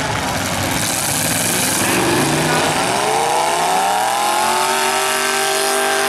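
Demolition derby car engine revving up about two and a half seconds in and then held at high revs, over the steady din of other engines running in the arena.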